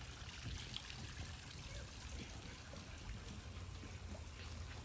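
Faint, steady trickle of running water, with a low hum underneath.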